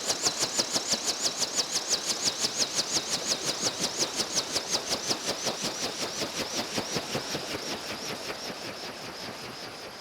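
Helicopter rotor chop, an even beat of about five or six blade slaps a second, steadily fading away as the helicopter flies off.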